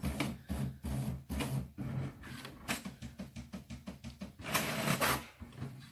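Brother MFC-J6720DW inkjet printer printing a print-quality check sheet after a head cleaning: its print mechanism runs in a stuttering series of short mechanical strokes, with a longer, louder run about four and a half seconds in.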